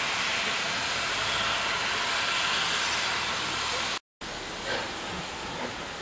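Steam hissing from several steam locomotives running in a line: a loud, steady hiss that breaks off in a brief dropout about four seconds in, then carries on quieter with a few soft puffs.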